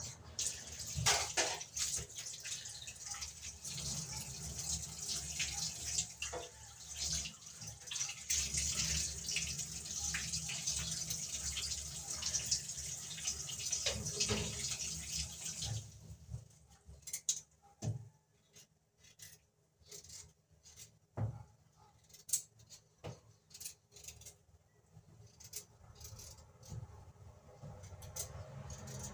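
Water running from a kitchen tap into a stainless steel sink as potatoes are rinsed, cutting off about halfway through. After that come scattered light clicks and knocks of a knife peeling potatoes over the sink.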